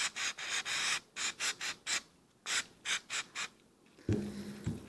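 Brass wire brush scrubbing carbon off a throttle body's butterfly, in quick rasping strokes about four a second, with a short pause after two seconds; the scrubbing stops about three and a half seconds in. A louder, low sound follows near the end.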